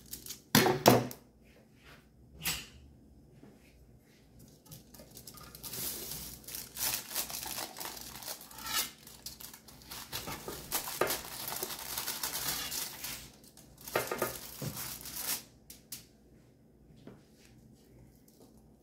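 Aluminium foil crinkling and rustling as a knife and cake lifter scrape along the foil lining of a cake pan, with a couple of sharp knocks in the first few seconds and a long stretch of busy crinkling in the middle.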